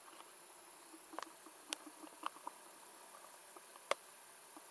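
Small DC motor driving a larger DC motor through a rubber band belt, running quietly with scattered light clicks and ticks, the sharpest just under four seconds in.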